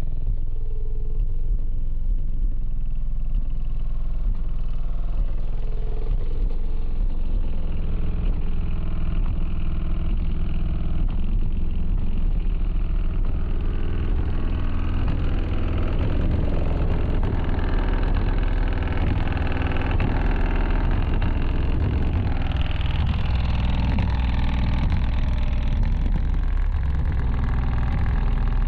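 Bass-heavy music played loud through a car audio system's subwoofers, heard from outside the car. The low bass notes shift in steps, and a busier upper layer comes in about halfway.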